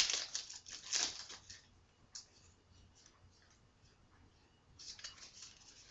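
Trading cards and their foil pack wrappers being handled, with short crinkling rustles near the start and again near the end and a quiet stretch in between.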